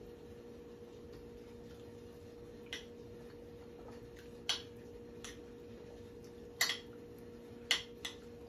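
A metal utensil clinking and scraping against a ceramic dinner plate while scooping up food, about half a dozen short, sharp clinks spread over the last few seconds. A faint steady hum runs beneath.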